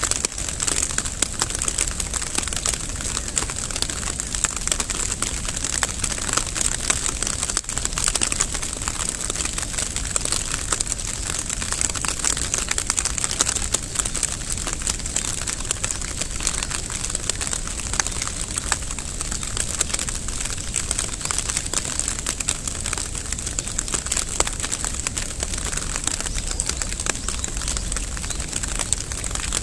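Steady rain, a dense, even crackle of drops pattering.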